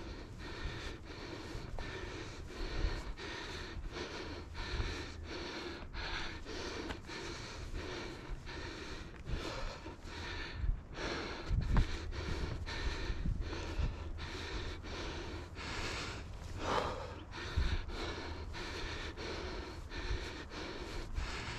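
A hiker's heavy huffing and puffing through a face mask while climbing steep stairs, the breaths coming in a quick, even rhythm.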